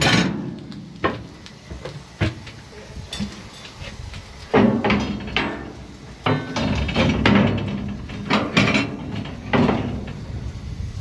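Irregular metal clanks and knocks in a steam locomotive's cab over a steady low rumble. The clanks come in loud clusters about four and a half, seven and eight and a half seconds in.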